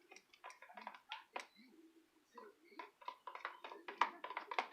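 Spoon stirring school glue in a bowl, with a quick, irregular run of small clicks and taps against the bowl.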